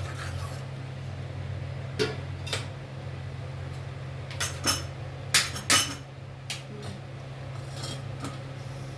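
A metal utensil clinking and knocking against a cooking pot, about nine scattered strikes with the loudest pair a little past the middle, over a steady low hum.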